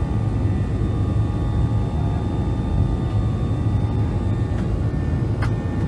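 Steady cabin noise inside a Boeing 737-800 climbing out after takeoff: a low rumble of the CFM56-7B turbofan engines and airflow, with faint steady engine tones above it.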